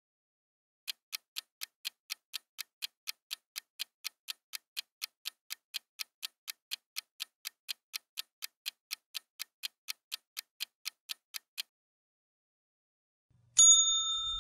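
Ticking timer sound effect, about four even ticks a second for roughly ten seconds, counting down a quiz round. After a short pause, a louder bell-like chime sounds near the end as the answer is revealed, ringing on and fading.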